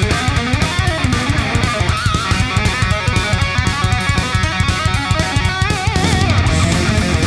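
Background rock music with electric guitar and a steady drum beat, including a bending lead guitar line near the end.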